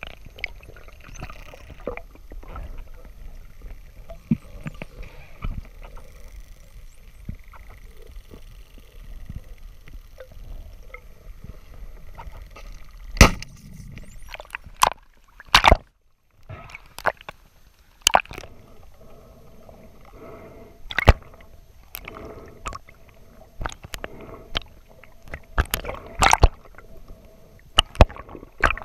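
Underwater sound through a diver's camera housing: a low water rush with scattered clicks and knocks. About thirteen seconds in comes one loud sharp crack, the speargun being fired, and many more clicks and knocks follow.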